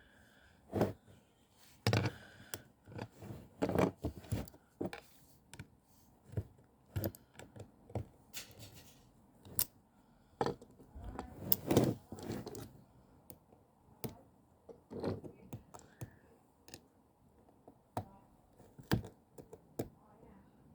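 Irregular clicks, taps and short scrapes of small tools and fingers working on a tablet's circuit board as its connector leads are unclipped and pulled out.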